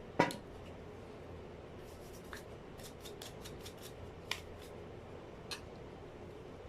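A sharp click, then a quick run of light clicks and two more single clicks: small hard parts of a hair clipper being handled and clicked during repair.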